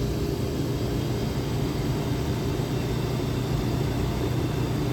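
Glycol beer line chiller's refrigeration compressor and condenser fan running steadily with a low hum.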